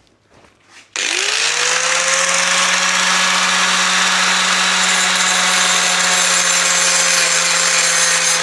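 Angle grinder starting up about a second in, its motor whine rising then holding steady, grinding fresh steel spot welds down flush.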